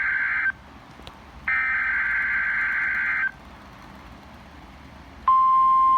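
Emergency Alert System broadcast on NOAA Weather Radio. It opens on the end of one SAME digital header burst, a harsh buzzing warble that stops about half a second in, and a second identical burst follows from about 1.5 to 3.3 seconds. About five seconds in, the steady 1050 Hz weather radio warning tone comes on, the attention signal that precedes the spoken alert.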